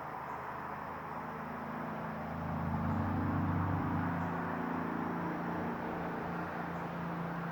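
Road traffic noise: a motor vehicle passing, its low engine hum and tyre noise swelling to loudest about three seconds in, then carrying on steadily.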